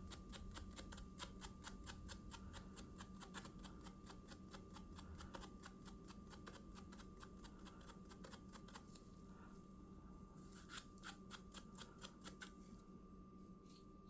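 Faint, quick rhythmic strokes of sandpaper rubbed by hand over a walnut revolver grip panel, several a second, thinning to scattered strokes after about nine seconds. A steady faint hum runs underneath.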